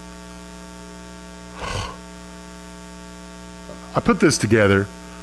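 Steady electrical mains hum, with a brief short noise about a second and a half in and a man speaking briefly near the end.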